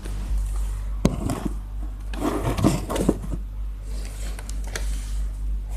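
A sharp snap about a second in, then a second or so of scraping and rustling with small knocks, and a few lighter clicks near the end, all over a steady low hum.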